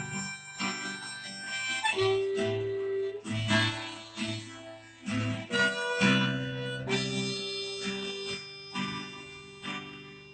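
Harmonica playing a melody with some long held notes, accompanied by a strummed acoustic guitar.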